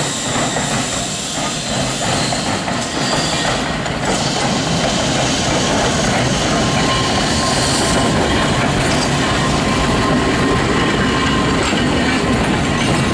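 Manx Electric Railway winter saloon tramcar No. 19 and its trailer moving off and running past close by: the wheels rumble and clatter over the rails, growing louder a few seconds in and holding steady as the cars go by. A faint high wheel squeal on the curved track is heard in the first half.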